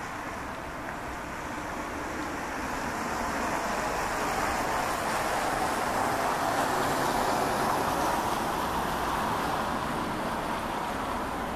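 Rushing noise of road traffic passing, swelling to a peak about seven seconds in and then easing off.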